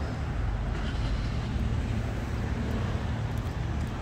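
Steady city street traffic noise from cars on the road.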